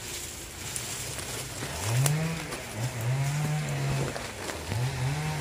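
Chainsaw revving in several pulls, starting about two seconds in. Its engine note rises, holds steady for a second or so, then drops between pulls, with quick short blips near the end.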